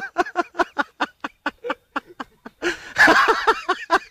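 A person laughing hard in quick, rapid bursts, with a louder outburst about three seconds in.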